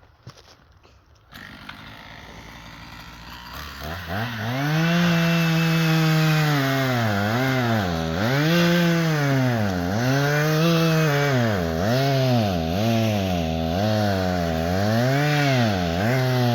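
A two-stroke chainsaw starts up about a second in and runs low, then goes to full throttle at about four seconds. It cuts into oak, its engine pitch sagging and recovering roughly every two seconds as the chain bites into the wood.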